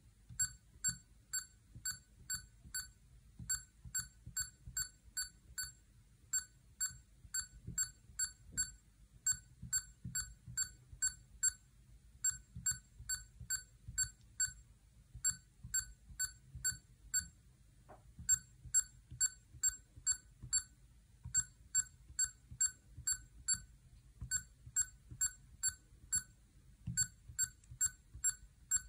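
HP 19B II calculator beeping once for each key pressed during its keyboard self-test: short high beeps about two or three a second, in runs of about six with brief pauses between them, over faint taps of the keys.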